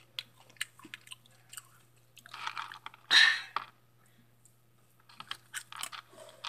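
Someone chewing crunchy Hot Cheetos with the mouth near the microphone: scattered sharp crunches with gaps between them, and a louder burst of noise about three seconds in.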